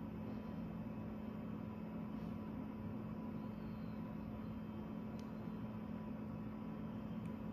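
Steady low hum with a faint hiss, even throughout with no breathing rhythm standing out, and two faint clicks, one about two-thirds in and one near the end.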